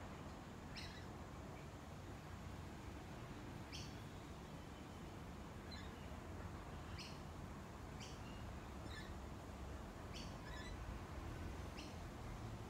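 Short bird chirps, roughly one every one to two seconds, over a steady low background rumble.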